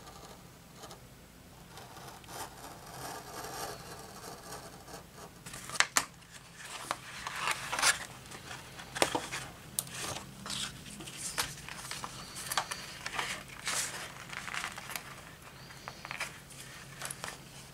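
X-Acto hobby knife slicing slots in thin cereal-box cardboard. The scratching is faint at first; from about five seconds in come short, sharp scratchy cuts and scrapes, irregular and roughly one or two a second.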